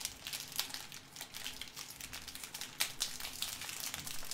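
Clear cellophane treat bag crinkling in the hands as it is gathered closed around a cookie: a dense run of small, irregular crackles.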